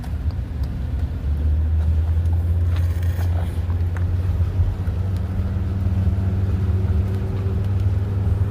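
Steady low rumble of a vehicle in motion, with a faint steady hum joining about five seconds in.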